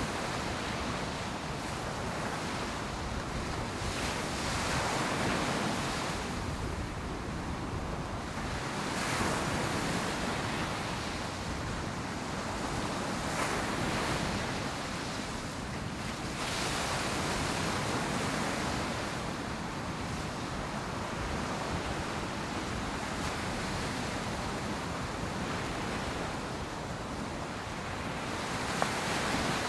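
Ocean surf breaking and washing up the beach: waves crash in a steady hiss that swells every few seconds, with some wind noise on the microphone.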